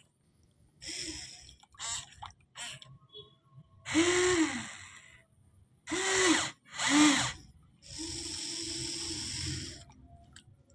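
Electric drive motors of a Huina RC excavator whining in short runs, each rising then falling in pitch as a control is worked, with a longer steady run near the end.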